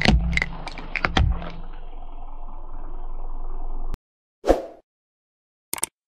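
A car tyre rolling over small plastic toy tubes of liquid, crushing them with several sharp cracks in the first second and a half over the steady noise of the car, which cuts off about four seconds in. Then a short swoosh and a quick click from an outro animation.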